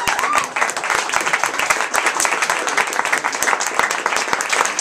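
Audience applauding, many hands clapping densely together.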